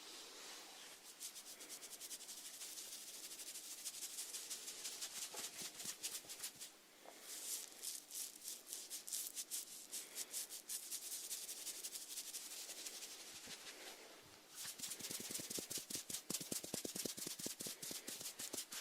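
Close-miked snails rasping at food, a fast run of fine, crisp clicks, many to the second. They come in three stretches with short breaks about seven and fourteen seconds in, and the last stretch is the loudest and fullest.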